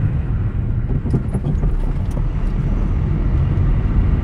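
Steady low rumble of wind and road noise from a vehicle in motion, heard from on board.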